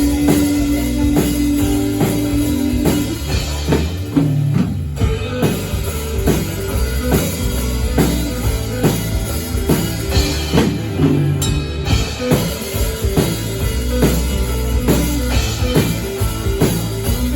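Instrumental rock band passage with no singing: drum kit keeping a steady beat under bass and guitar.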